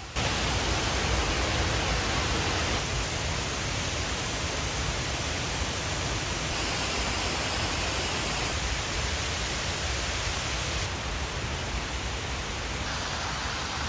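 Steady rushing noise of outdoor ambience, even and without distinct events, changing slightly in tone at a few cuts.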